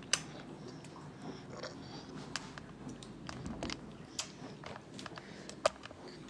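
Babies chewing and mouthing soft boiled pear and pineapple pieces: scattered wet smacks and small clicks, with two sharper clicks, one just after the start and one near the end.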